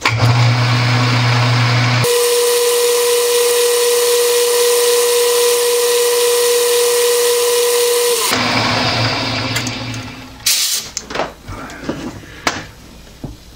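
An old metal lathe: its motor hum comes on, and about two seconds in the spindle runs with a steady whine for some six seconds during a very light finishing cut. It then runs down, followed by a few knocks and clicks near the end.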